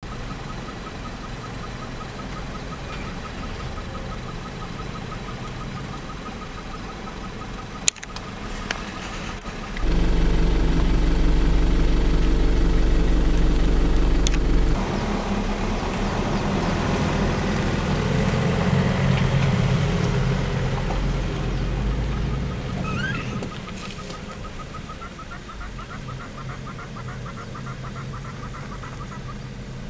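Safari vehicle engine running, with a steady low hum that grows much louder from about ten seconds in and eases off again past twenty seconds. A sharp click comes about eight seconds in, and a rapid repeated chirping sits in the background at the start and near the end.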